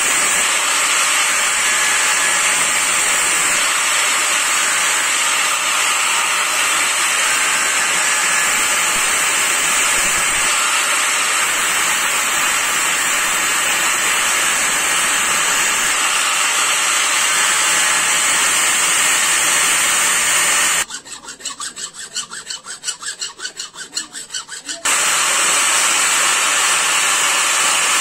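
Electric angle grinder with an abrasive disc grinding the steel blade of a billhook, a steady loud high-pitched grinding noise as the edge is ground. Well past the middle it breaks off for about four seconds, leaving a quieter rapid flutter, then runs again.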